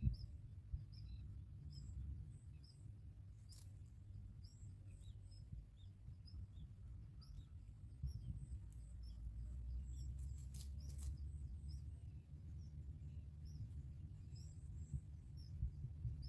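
Faint, short, high-pitched bird chirps repeated about twice a second over a low rumble, with a few sharp clicks about three seconds in and near the middle.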